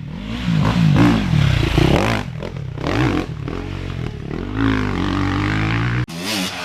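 Off-road vehicle engine revving up and down again and again, cutting off suddenly about six seconds in, after which an engine revs again.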